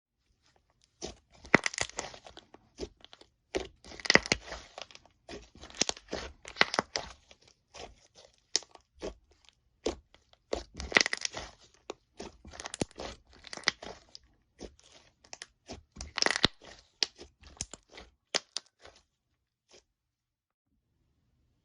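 Slime being squeezed and pressed by hand, giving bursts of dense clicking and crackling about every two to three seconds, which stop near the end.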